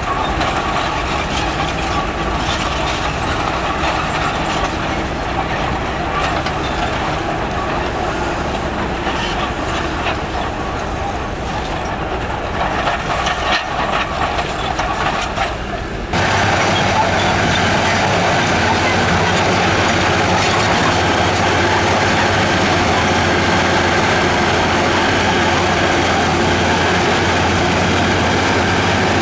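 Heavy diesel construction machinery running. About halfway through the sound changes suddenly to a louder, steadier engine drone.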